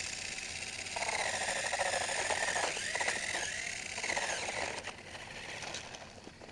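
Electric RC car's motor whining as it drives, its pitch rising and falling, with the car rattling over the ground. It dies away about five seconds in.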